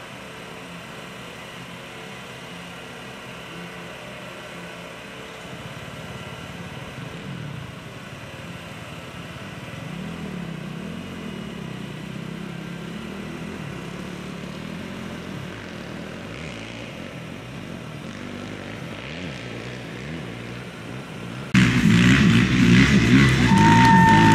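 Off-road race motorcycle engines running at a moderate level, pitch rising and falling as they rev. About 21 seconds in, the sound jumps to a much louder mix of engine noise and music, with high tones sliding downward near the end.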